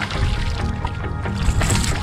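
Background music with steady low held notes.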